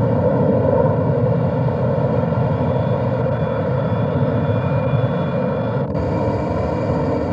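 Boeing 747 turbofan engines running steadily: a dense noise with a whine of many steady tones above it. It shifts slightly about six seconds in.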